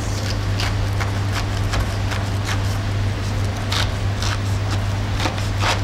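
Chef's knife cutting down through a whole head of green cabbage on a wooden board: short crisp cracks of the leaves splitting, about eight scattered irregularly, over a steady low hum.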